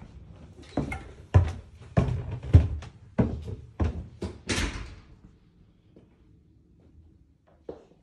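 A quick series of about a dozen sharp knocks and thumps over four seconds, the loudest about a second and a half and two and a half seconds in. Then it goes quiet, with one small knock near the end.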